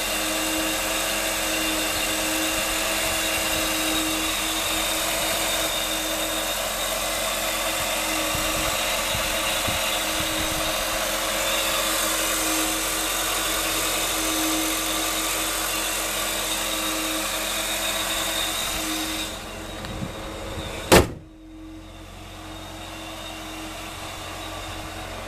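1988 Ford Mustang LX's 2.3-litre four-cylinder engine idling steadily under the open hood, with a steady whine over the idle. Near the end the sound drops and turns duller, and one sharp bang is heard as the hood is shut. The idle goes on more muffled after it.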